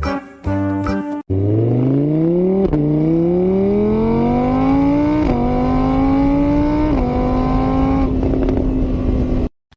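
Car engine accelerating hard through the gears: its pitch climbs, drops at each of four upshifts, then levels off before cutting off abruptly. A snatch of music plays in the first second.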